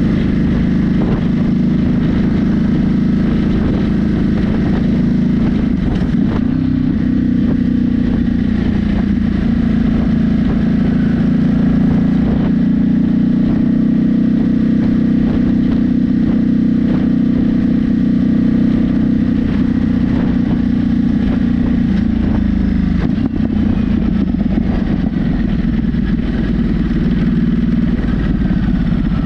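Ducati Monster 937's L-twin engine running through an aftermarket Mivv exhaust with the dB killer removed, heard from on the bike while riding. The note holds steady at cruising revs, rising slightly about six seconds in and dipping around twenty-two seconds in.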